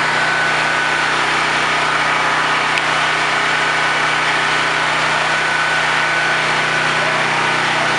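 A small engine running steadily at an even speed, with a faint high whine over it.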